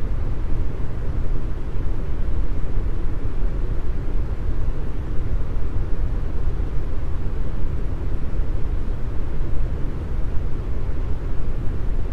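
Deep brown noise: a steady, even hiss weighted heavily toward the bass, with little treble.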